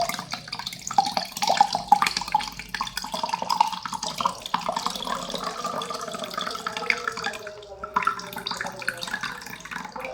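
Cold water pouring steadily into a Deerma DR035 folding electric kettle, filling it.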